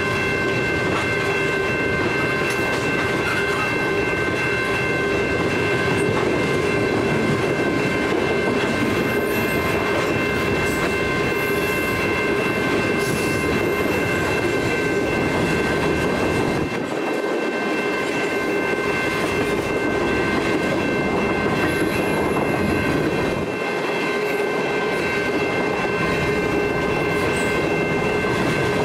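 Freight cars rolling past a level crossing: tank cars and covered hoppers clattering steadily over the rail joints and the crossing. Steady high ringing tones run over the rumble throughout. The low rumble dips briefly twice, in the middle and near the end.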